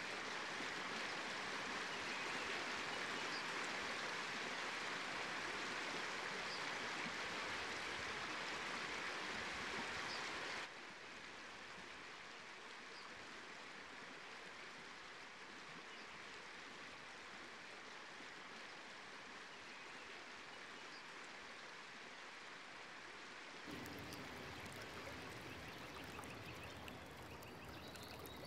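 Steady rushing of a small stream's running water. It changes abruptly twice: it is louder and brighter at first, softer after about ten seconds, and fuller with a deeper rush near the end.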